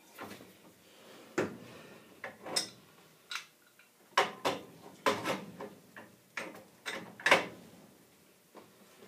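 Spud wrench working a furnace gas valve loose from its gas pipe: a series of irregular sharp metal clicks and knocks, the loudest about four and seven seconds in.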